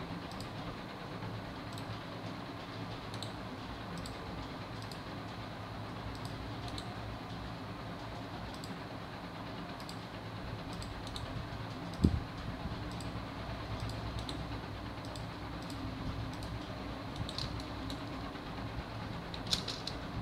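Computer mouse clicking at irregular intervals, about one click every half second to a second, over a steady low hum. A single thump about twelve seconds in is the loudest sound.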